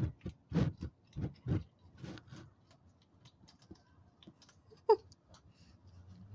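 Skunk crunching dry pellet food from a tray: irregular quick crunches, heavier in the first couple of seconds and sparser after, with one sharp louder click and squeak about five seconds in.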